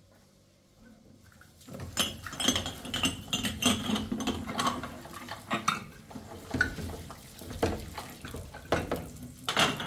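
Clatter and clinking of dishes and cutlery, beginning after a short quiet stretch about two seconds in and going on in quick, irregular knocks and clinks.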